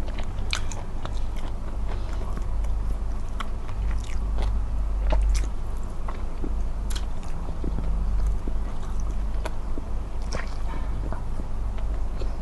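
Close-miked eating of smoked chicken: biting and chewing with many small, scattered wet clicks and smacks, over a steady low rumble.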